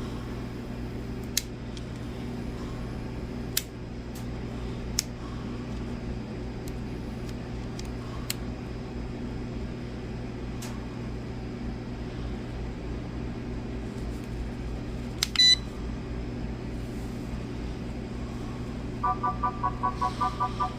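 Steady low electrical hum with a few scattered clicks, then a single short, sharp electronic beep about fifteen seconds in. Near the end a quick series of repeated electronic beeps starts, a few per second, alternating between two or three pitches.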